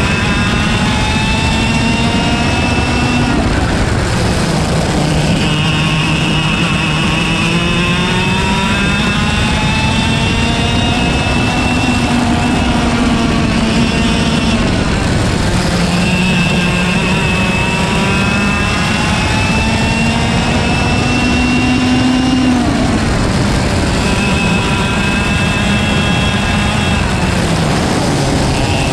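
IAME KA100 single-speed two-stroke kart engine heard onboard at racing speed. It climbs slowly in pitch along the straights and drops sharply each time the driver lifts and brakes for a corner, several times over.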